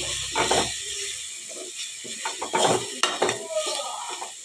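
Metal spatula scraping and clattering against a metal kadai as onions, tomatoes and spices are stir-fried in oil, in irregular strokes over a light sizzle. The stirring grows quieter toward the end.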